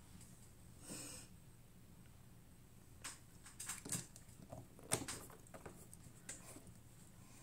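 Faint handling sounds of a skincare product's packaging being opened: a soft rustle about a second in, then a cluster of small clicks and crinkles, the sharpest about five seconds in.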